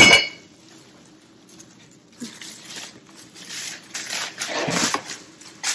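Artificial autumn-leaf garland rustling as it is handled and pulled out of a plastic storage bin, in several bursts, with a short tap near the end.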